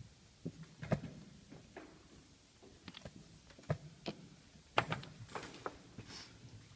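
Plastic chess pieces knocked down on a roll-up vinyl board and the buttons of a digital chess clock being hit, in quick irregular clacks and clicks as blitz moves are made.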